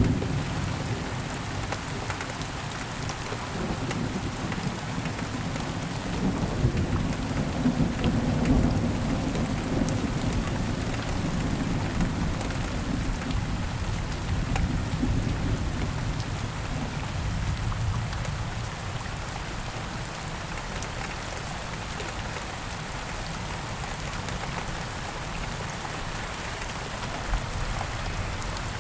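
Thunderstorm: steady rain falling, with low rolling thunder. A rumble is dying away at the start and another swells and fades about a quarter of the way in, leaving the rain alone.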